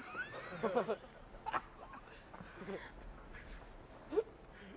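A person imitating a pigeon's coo with their voice, a wavering, gliding warble in the first second, followed by a few short chuckles.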